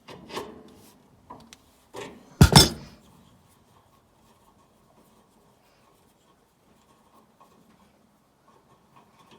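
Metal clinks and knocks from hand tools on a sawmill blade guide while a worn guide bearing is taken off: a few light clinks, then one sharp metallic knock about two and a half seconds in.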